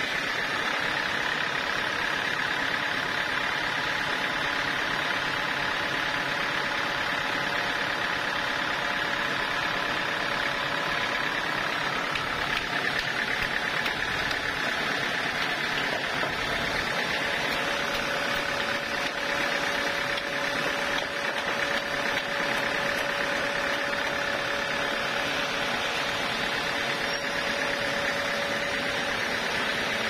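Band sawmill running steadily, its blade cutting lengthwise through a thick timber of Javanese red wood. A faint steady whine joins a little past halfway.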